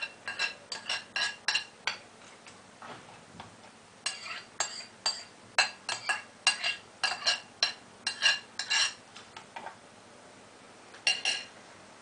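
A spoon clinking and scraping against a bowl as the last of the yogurt is knocked out of it: runs of quick ringing clinks, pausing twice.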